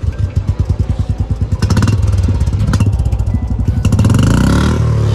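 Stock Royal Enfield Bullet 350's single-cylinder engine starting and running through its stock silencer. It thumps steadily, grows louder about two seconds in, and revs up briefly near the end.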